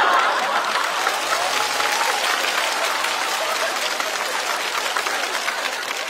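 Studio audience applauding and laughing in response to a stand-up punchline. The applause is loudest at first and slowly dies down.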